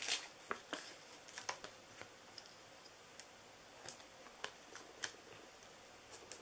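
Faint, scattered light clicks and rustles of cardstock being handled as small foam adhesive dimensionals are peeled and pressed onto a die-cut paper candy cane.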